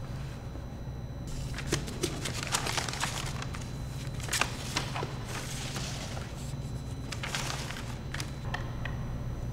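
Papers rustling and the small clicks and knocks of hoses and plastic and foam suit parts being handled on a worktable, irregular and busiest in the middle, over a low steady hum.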